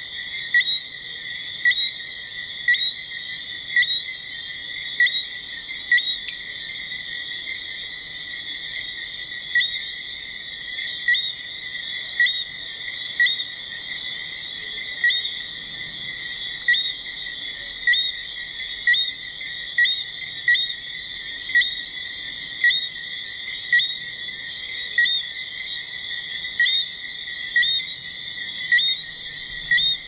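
Dusk chorus of calling animals: a steady high-pitched trill, with a louder short chirp repeating about once a second.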